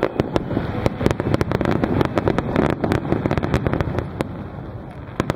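Rapid barrage of aerial firework shells bursting: many sharp bangs and crackles in quick succession, thinning out near the end with one last loud bang.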